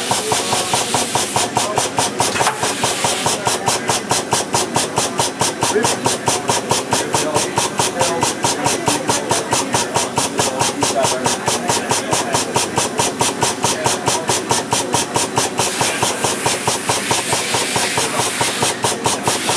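Steady hiss and machine noise of an industrial robot workcell, pulsing fast and evenly about five or six times a second, with the hiss growing stronger near the end.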